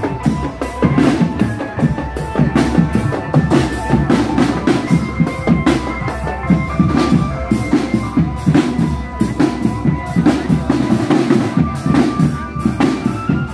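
Marching drum band playing: snare and bass drums beating a steady, fast rhythm, with held notes of a melody over the drums.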